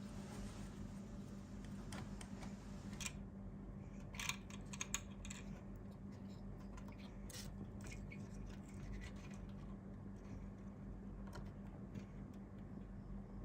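Scattered light clicks and scratches of small parts and hand tools being handled, over a steady low hum.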